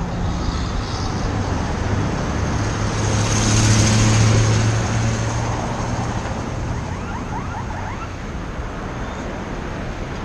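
Street traffic: engines running and tyres on asphalt, with one vehicle passing close and loudest about four seconds in before fading.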